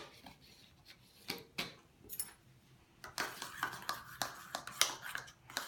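A small coffee spoon stirring baking soda in boric acid water in a small container, clinking and scraping against its sides. A few separate clicks at first, then quicker, busier stirring from about three seconds in.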